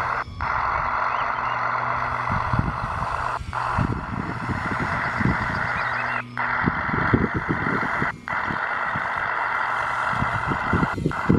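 1:16 scale RC crawler tractor driving, its electric drive motors and gearbox whining steadily with crackling track noise as it pushes a loaded boat trailer across sand. A low steady hum under it stops about six seconds in.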